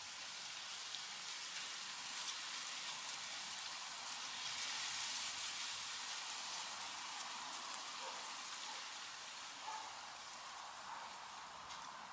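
A group of guinea pigs munching and rustling through a heap of freshly pulled garden weeds: a steady, rain-like crackle of many small chewing and tearing clicks.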